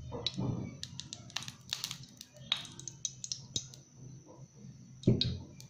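Cooking oil heating in a hot nonstick pan, crackling with scattered sharp pops and ticks over a low steady hum. A dull thump comes about five seconds in.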